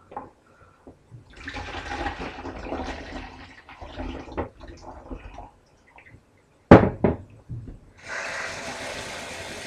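Water poured from a jug through a funnel into a bottle in the sink, sloshing and splashing for several seconds. About two-thirds of the way in come two sharp knocks of something hard set down, then water runs steadily again near the end.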